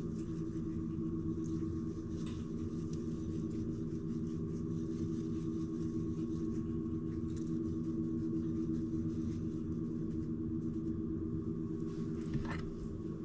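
A steady low mechanical hum from a running machine, with a few faint light ticks over it.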